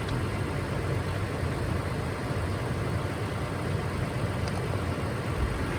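A steady low, engine-like rumble that does not change. A faint light click comes about four and a half seconds in.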